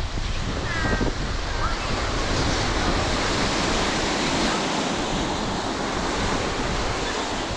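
Ocean surf breaking and washing on the beach, a steady rushing noise, with wind on the microphone.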